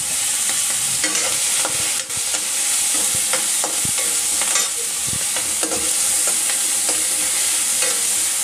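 Chopped masala with green chillies sizzling in hot oil in a kadhai, being fried. A metal ladle scrapes and knocks against the kadhai again and again as it stirs, the pan ringing briefly after some strokes.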